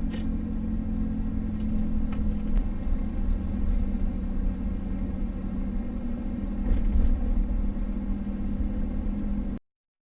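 Steady low rumble of a motor vehicle running, with an even engine hum and a few faint clicks. It cuts off abruptly near the end.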